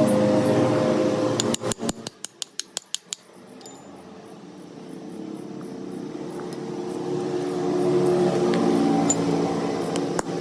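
A workshop machine's motor hums steadily, then stops about a second and a half in with a quick run of clicks. The hum then slowly builds back up.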